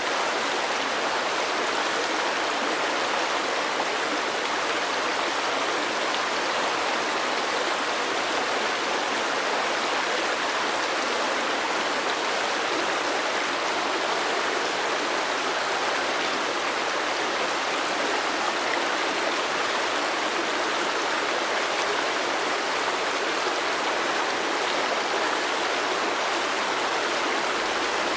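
Fast-flowing creek rushing over rocks: a steady, even rush of water.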